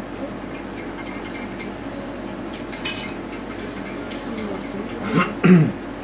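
Soft scraping and light taps of a palette knife laying thick oil paint onto canvas, with a brief click about three seconds in. Near the end comes a short two-part murmured voice, like an "uh-huh", which is the loudest sound.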